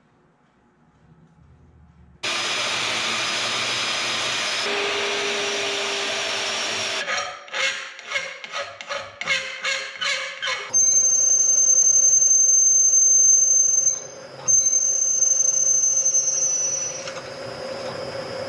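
Metalworking on a small engine block-off plate: a power tool cutting with a loud steady noise for about five seconds, then filing strokes at a bench vise, about three a second. Then a milling machine cutting with a loud high steady squeal, which breaks off briefly near the middle and resumes.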